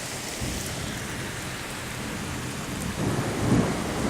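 Heavy rain pouring down steadily in a thunderstorm, with a low rumble of thunder building about three seconds in.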